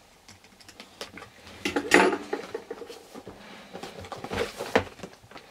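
Utility knife slitting the tape on a cardboard figure box, then hands handling the box: scrapes, clicks and cardboard rubbing, loudest about two seconds in and again near the end.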